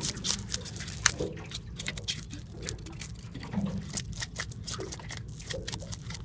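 A knife blade scraping the scales off a bream: a quick, irregular run of short rasping strokes, with scales flicking off the fish.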